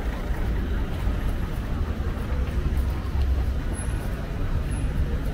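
City street traffic: motor vehicles running past in a steady low rumble.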